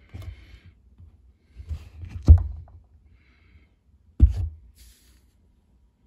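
Handling noise: two sharp thumps, the louder one about two seconds in and a second about four seconds in, with a few softer thuds and faint rustles between.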